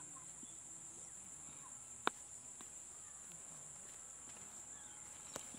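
Faint outdoor ambience: a steady high-pitched insect drone, with faint distant voices and a sharp click about two seconds in, plus a smaller click near the end.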